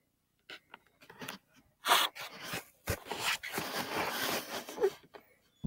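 Handheld camera being handled and moved: close rustling and scraping against the microphone with a few clicks, densest for about three seconds in the middle.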